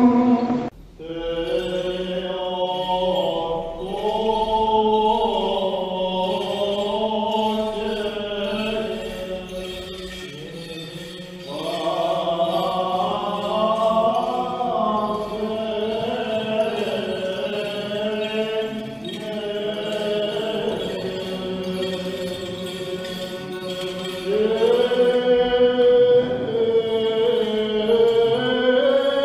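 Greek Orthodox Byzantine chant: voices singing a slow, melismatic melody over a steady held low drone (the ison). It breaks off briefly about a second in, then carries on.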